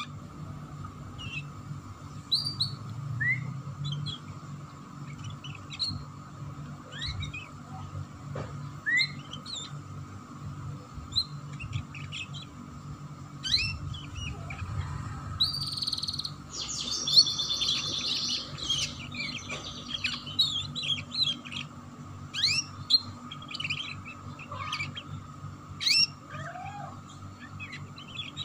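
Domestic canary chirping in short scattered notes, breaking into a dense rapid chattering trill a little past halfway, the rough 'ngeriwik' style of canary song. A steady low hum runs underneath.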